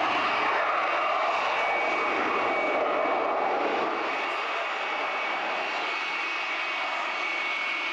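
Dassault Rafale's twin Snecma M88 turbofans in full afterburner on the takeoff run and climb-out: a steady, loud jet roar with a thin high whine on top, easing off a little about halfway through as the jet climbs away.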